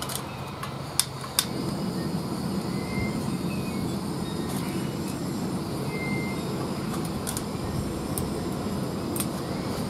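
Small propane burner lit under a pot, its flame running with a steady low rushing noise that comes up about a second and a half in, after a few sharp clicks.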